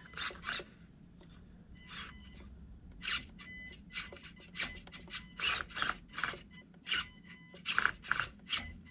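Scale RC crawler (Axial SCX24) driven in short throttle bursts while stuck: the small electric motor and gears whir and the tyres and chassis scrape and rasp against the course, in quick irregular spurts.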